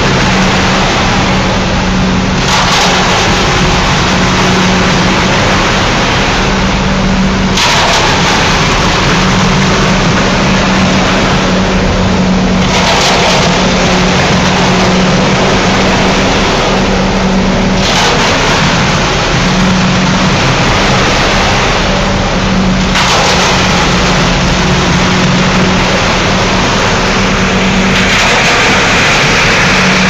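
Concrete mixer drum turning with concrete inside, over the steady hum of the engine that drives it. A louder rush of noise comes round about every five seconds.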